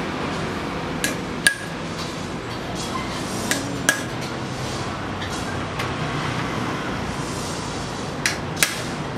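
Small hammer tapping on metal: three pairs of sharp strikes a few seconds apart, each with a short metallic ring.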